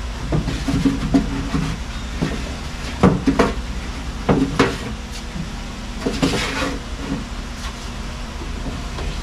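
Heavy battery cable being fed behind a car's inner fender well: scattered knocks and scrapes of the cable and hands against the fender sheet metal, the sharpest about three and four and a half seconds in, over a steady low hum.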